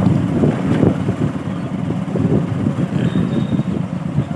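Motorcycle engine running on the move, with wind buffeting the microphone.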